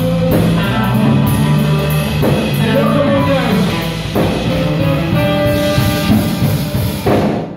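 Live blues band playing: trumpet and saxophone holding notes over electric guitar and a drum kit. The band stops together near the end.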